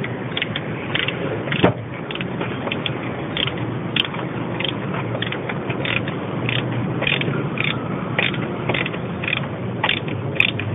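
Wrench working the accessory-belt tensioner on a Citroën C3 engine to tension a new belt: irregular metallic clicks and scrapes, several a second.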